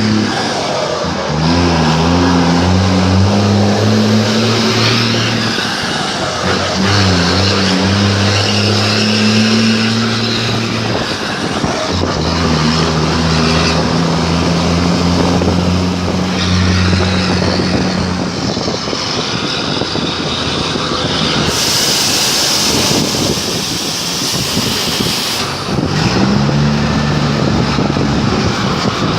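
Truck engine with a straight-through exhaust (escape direto) running loud. Its note shifts and bends in pitch several times as the speed changes. About two-thirds of the way through, a loud hiss lasts a few seconds.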